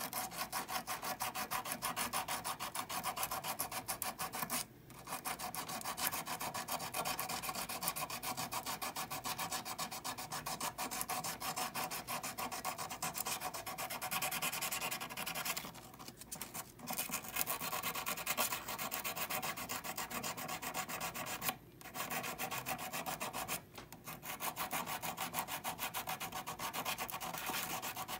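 Rapid back-and-forth hand sanding with a small strip of abrasive paper on a hollow 14kt gold bangle held on a wooden bench pin, with a few short pauses between runs of strokes.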